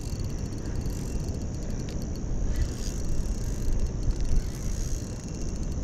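Steady wind rumble on the microphone while a Daiwa Caldia 3000 spinning reel is worked against a hard-pulling fish. Faint quick ticking from the reel comes through around two seconds in and again near the end.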